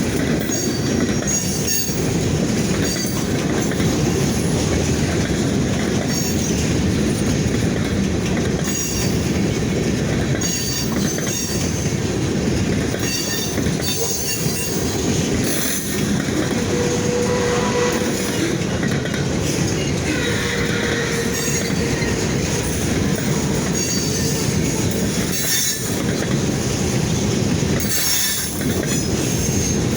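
Freight cars of a local freight train rolling steadily past, with wheels squealing briefly again and again and the clack of wheels over rail joints.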